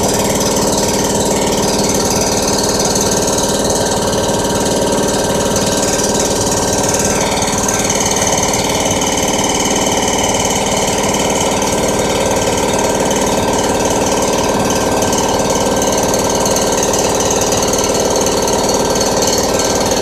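Anest Iwata Motherson CROWN 2 hp, 160-litre belt-driven air compressor running steadily, its electric motor and piston pump making a loud, rapid, even pulsing throughout.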